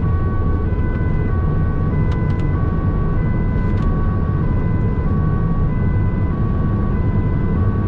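Two-tone emergency siren on a responding vehicle, heard from inside the van's cabin, switching between two pitches about every half second over steady road and engine noise.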